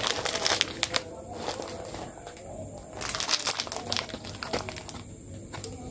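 Plastic packaging crinkling as it is handled: a dense crinkle at the start, then scattered crackles and clicks of the plastic pack being turned in the hands.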